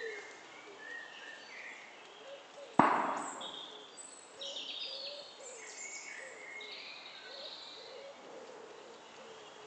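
Birds singing and chirping in woodland, several short phrases overlapping. About three seconds in, a single sharp knock, the loudest sound here, rings away over about half a second.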